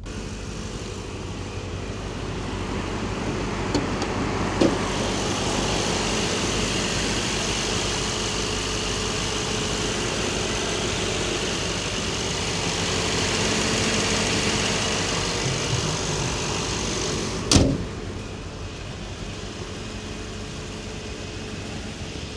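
Mercedes-AMG SL55 on the move, its 4.0-litre twin-turbo V8 running steadily under a hiss of road and wind noise that swells over the first few seconds. A single loud sharp crack comes about three-quarters of the way through, and the sound drops quieter after it.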